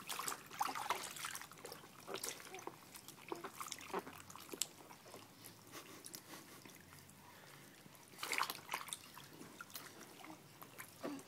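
Bath water splashing and trickling in a small plastic infant bathtub as a baby is bathed, with louder stretches of splashing at the start and again around eight seconds in.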